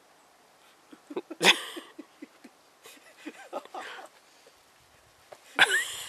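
Short wordless vocal bursts from people: a sharp cough-like outburst about a second and a half in, a few brief voiced sounds, then a loud exclamation near the end.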